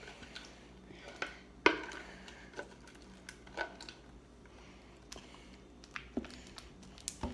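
Red plastic utensil scraping and tapping against the inside of a clear plastic bowl as fluffy slime is worked out of it: a scattering of short, separate scrapes and clicks, about one a second.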